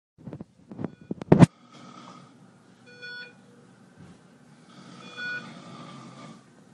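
A few loud knocks, then a steady hum in a small room with a short electronic beep twice, about two seconds apart.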